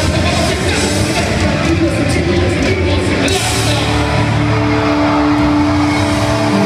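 Live rock band music played loud over a concert sound system, with singing, heard from within the crowd; a long held note comes in about halfway.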